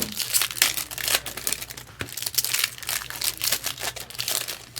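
Foil trading-card pack wrappers crinkling and rustling in quick, irregular bursts as they are handled.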